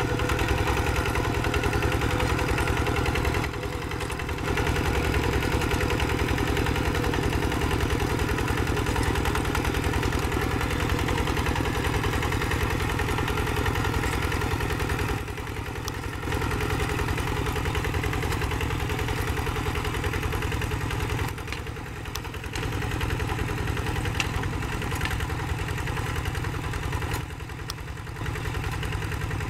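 Quick G3000 two-wheel hand tractor's single-cylinder diesel engine running steadily under load as its cage wheels plough through paddy mud, with a few brief dips in level.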